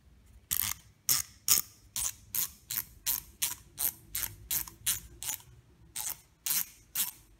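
1Zpresso X-Pro hand coffee grinder's adjustment dial clicking through its detents as it is turned to close the burrs fully: a regular run of sharp clicks, about three a second, with a brief pause around six seconds in.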